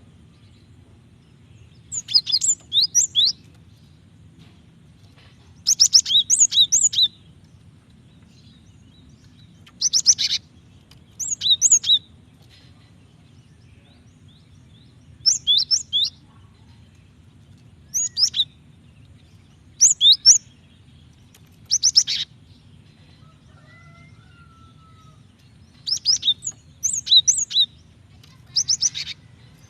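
Female cinereous tit (gelatik batu) calling to draw a male: about ten short bursts of rapid, high chirps, one every two to four seconds, over a steady low hum.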